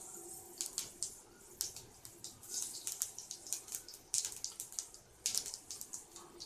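Whole spices (cumin seeds, cinnamon, cloves and peppercorns) sizzling in hot oil in a pan, with a steady hiss and many irregular sharp crackles as they splutter.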